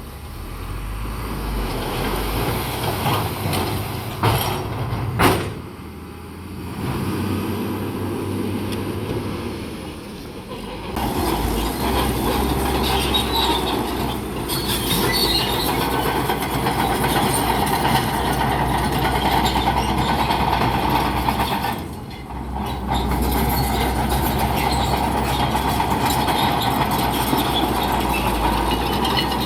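Bulldozer's diesel engine running under load, with its steel tracks clanking. A sharp knock comes about five seconds in.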